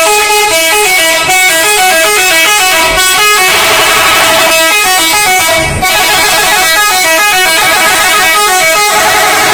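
Bus telolet horn, a multi-note musical air horn, very loud, playing a quick tune of short notes that step up and down in pitch, with a brief break about six seconds in.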